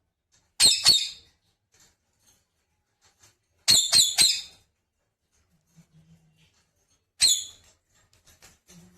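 Pet parrot giving short, shrill, high-pitched squawks in three clusters: two quick calls under a second in, three about four seconds in, and one more near seven seconds.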